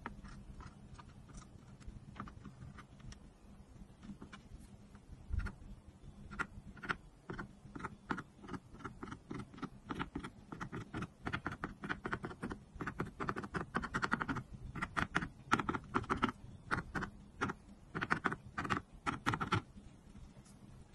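Marker tip tapping and stroking on a paper coloring page: quick dabs in short rapid runs, sparse at first and dense through the second half. One soft low thump about five seconds in.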